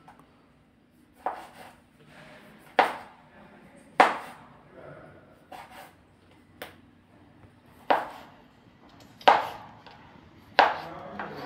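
Broad-bladed kitchen knife chopping a tomato on a wooden cutting board: separate sharp knocks of the blade striking the board, spaced irregularly about a second apart.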